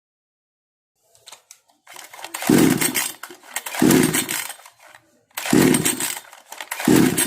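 58 cc Kisan Kraft two-stroke chainsaw being pull-started: four quick yanks of the recoil starter cord, about a second and a half apart, each turning the engine over briefly without it catching and running — the machine's starting problem.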